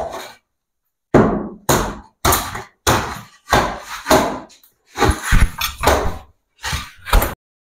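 About a dozen heavy blows, roughly one every half second to second, as a built-in cupboard is broken apart. The blows come faster for a moment past the middle and stop abruptly near the end.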